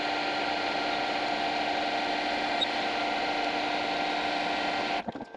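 Metal lathe running steadily in a higher gear with a gear whine, its chuck spinning as it turns down a replacement stepper motor shaft. The sound cuts off suddenly about five seconds in.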